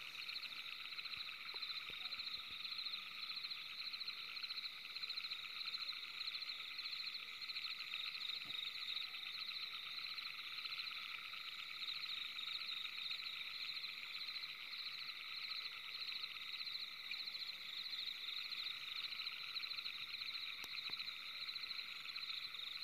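A steady chorus of fast, high-pitched pulsing trills.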